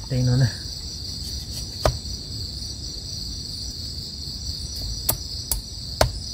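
Steady high chorus of night insects, with about four sharp wooden knocks from a knife blade cutting a small stick against a wooden block.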